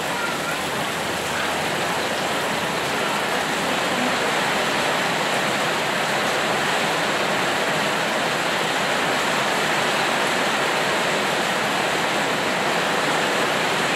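Rain falling steadily, an even hiss that neither rises nor fades.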